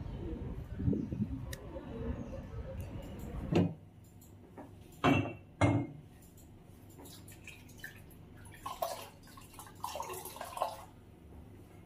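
Low outdoor background rumble that cuts off about three and a half seconds in. Two sharp knocks follow, then water splashing and dripping into a glass bowl as a wet cleaning cloth is wrung out.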